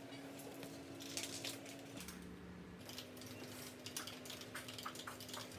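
Faint office sounds: scattered light clicks and taps of computer keyboard typing over a low steady hum.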